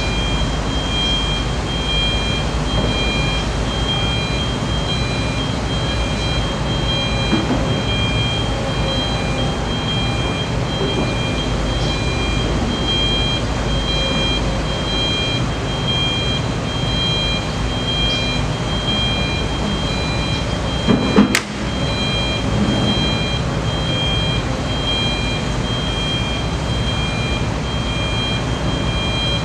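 Heavy construction machinery running steadily at a pile-driving site, a diesel-engine rumble, with a faint high beeping that repeats on and off throughout. A single sharp knock about two-thirds of the way through.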